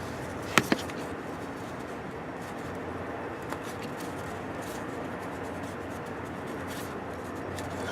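Two sharp clicks, then faint steady scraping as a hand tap wrench turns an M8 Time-Sert tap, cutting threads in an exhaust manifold stud hole of a Ford 4.6 V8 cylinder head. The tap is cutting easily.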